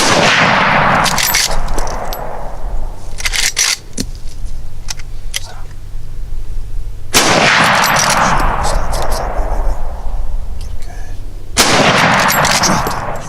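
Three rifle shots from a Marlin .30-30 lever-action, the first right at the start, the second about seven seconds in and the third near the end. Each shot is followed by a long echo that dies away over a few seconds, and short sharp clicks fall between the first two shots.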